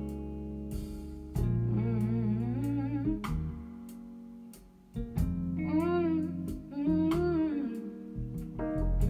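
A slow country-soul ballad played back over Yamaha NS-1000 loudspeakers driven by an EL84 push-pull tube amplifier, in an instrumental gap between vocal lines. Guitar chords and bass sit under a wavering, sliding melody line that comes in twice, with a brief lull between.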